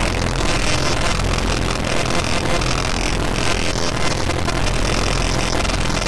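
Harsh noise music from a SunVox modular synthesizer: a dense, distorted wall of noise over a steady low drone.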